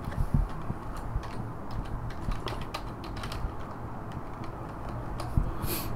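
Typing on a computer keyboard: irregular, quick key clicks over a steady low hum, with a short hiss near the end.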